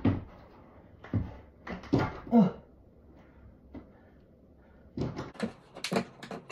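Knocks and scuffs of a climber's shoes and hands against a plywood home bouldering wall and its plastic holds, in a few bunches with the busiest near the end, and a short voice-like sound about two seconds in.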